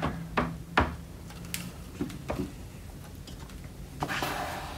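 Light knocks of a wooden squeegee against an aluminium screen-printing frame and ink-flooded screen. About four seconds in comes a short scraping stroke of the squeegee across the mesh.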